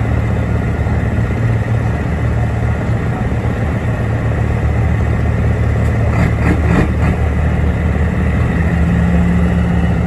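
Racing truck diesel engines running steadily, with no revving up or down. A few short clicks come about six to seven seconds in, and a steady low hum joins near the end.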